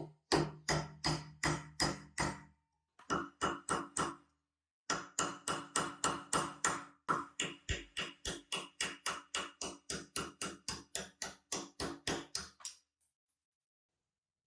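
Repeated hammer blows on metal, about three or four a second, in four runs with short pauses between. Each blow has a brief metallic ring. They stop a couple of seconds before the end.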